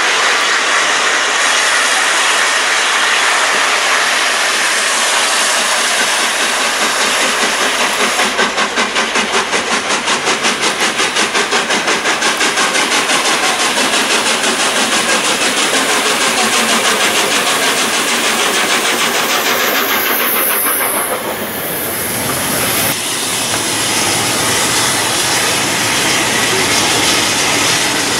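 LNER Peppercorn A1 Pacific 60163 Tornado, a three-cylinder steam locomotive, passing under steam with its train: loud steam and rail noise, with a rapid, even exhaust beat through the middle stretch.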